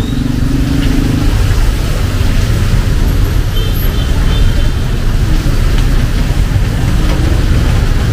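Close road traffic in the rain: the low rumble of vehicle engines, with a pitched engine hum that fades about a second in, over a steady hiss of rain.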